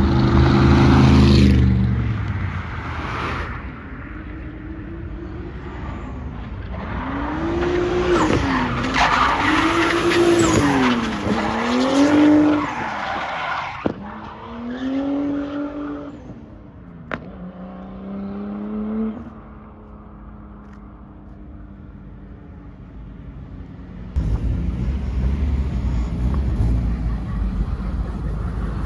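A car engine revved several times in quick rises and falls, then pulling away with its pitch climbing and dropping back at each gear change before fading out. A steady low rumble comes back near the end.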